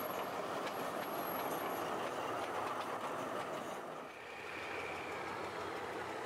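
State Railway of Thailand diesel locomotive passing on the tracks, a steady noise of the train rolling by for about four seconds. It then gives way to a quieter background with a faint steady high tone.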